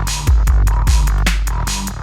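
Electronic dance music with a heavy bass and a steady, punchy drum beat.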